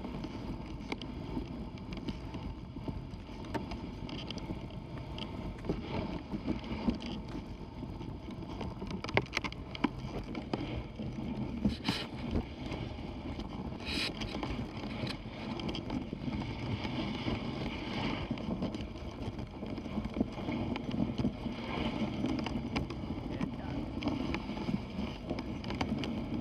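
Dog sled moving through deep fresh snow: a steady shushing of the runners and the dogs' feet in the snow, with a few sharp clicks and knocks.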